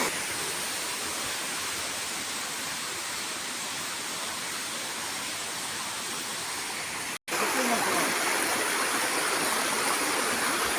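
Waterfall: the steady rushing of falling water, cut off for an instant about seven seconds in and coming back a little louder.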